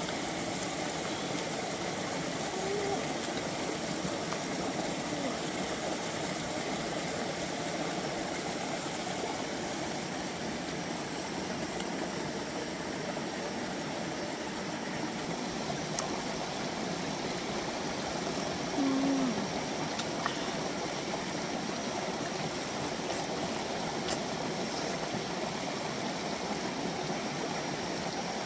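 Stream water flowing steadily, with a few faint clicks in the middle stretch.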